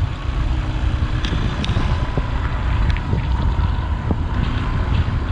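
Wind buffeting the microphone of a hand-mounted action camera on a moving motorbike, a steady low rumble with a few faint ticks.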